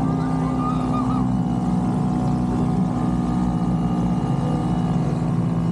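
Motorized bumper boat's small engine running steadily, with a constant drone as the boat pushes through the water.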